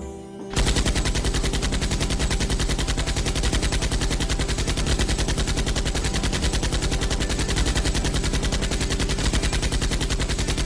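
A long, unbroken rapid-fire rattle of sharp bangs in fast, even succession, starting about half a second in and cutting off suddenly.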